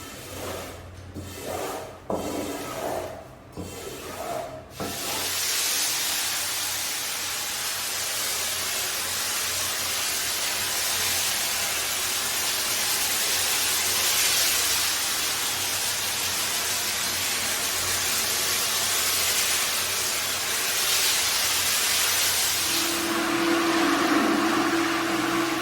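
Brush scrubbing a wet, dirty carpet in a few uneven strokes, then a steady hiss of carpet-washing equipment from about five seconds in, joined near the end by a steady motor hum.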